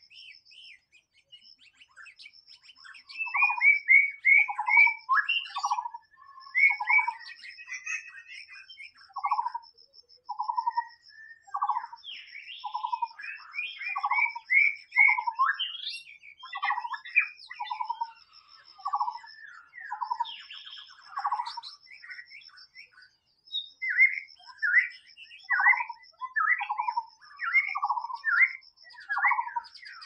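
White-rumped shama singing: a varied song of short whistled notes, many swooping downward, given in quick repeated phrases with brief pauses between them. A steady, evenly pulsed high-pitched trill runs behind the song.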